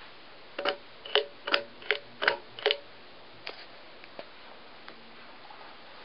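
Sharp metallic clicks from a running FASCO Charleston ceiling fan: a quick run of about eight, two to three a second, then a few fainter isolated ticks.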